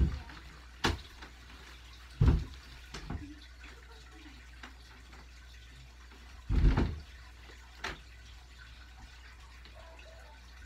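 About half a dozen thuds of feet on the floor from a child dancing, at irregular intervals, the loudest about two-thirds through. Under them runs a steady trickle of water from an aquarium filter.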